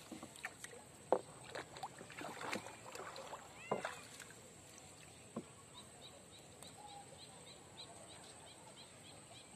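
Small splashes and drips of water as a fishing net is paid out by hand from a wooden boat into the river, with short knocks and clicks in the first few seconds. In the second half, faint high chirps repeat about two to three times a second.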